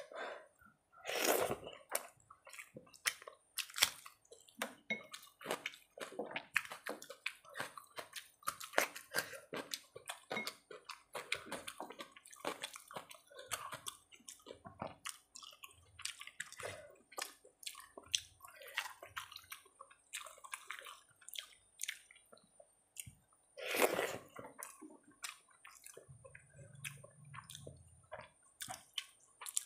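Rice being mixed and mashed with curry by hand on a steel plate: wet squishing and many irregular small clicks of fingers against the metal, along with chewing.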